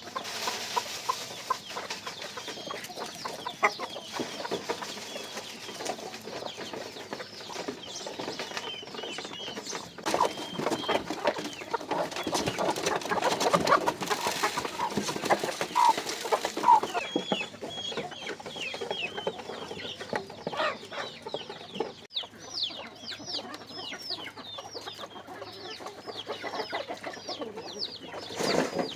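Chickens clucking, with many quick, high chirps mixed in; the clucking is loudest in the middle stretch.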